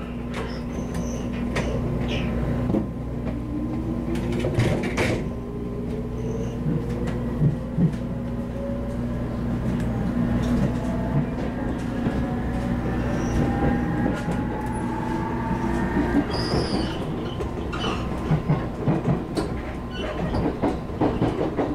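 Onboard running sound of a JR Kyushu 811 series electric train pulling away: a steady hum under the floor, then a whine of several tones rising steadily in pitch as the train picks up speed, the startup sound that fans call the "jet sound". Wheels knock over the track now and then, more often near the end.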